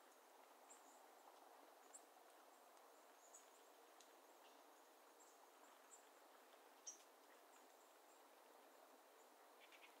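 Faint open-meadow ambience: a low, steady hiss with scattered brief, very high chirps, the loudest about seven seconds in.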